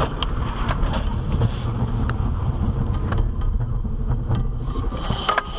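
Car driving at motorway speed, heard from inside the cabin: a steady low road and engine rumble with a few light clicks.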